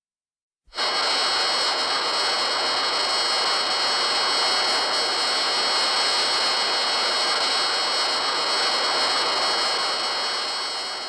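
MechaGodzilla sound effect from the Godzilla films: a steady, jet-like rushing hiss with several high, steady whining tones on top. It starts abruptly about a second in, holds even for about ten seconds and begins to fade near the end.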